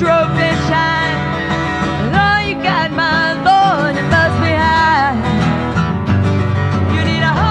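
Country-style band music: acoustic guitars playing under a melodic lead line with sliding, bending notes, in an instrumental stretch of the song.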